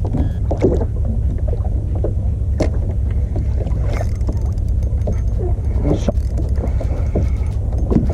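Small kayak on the sea, with water splashing and slapping against the hull in irregular short bursts over a steady low rumble.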